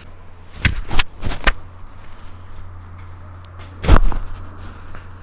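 Chiropractic adjustment: three quick sharp cracks or knocks about a second in, then one louder, heavier thump near the four-second mark.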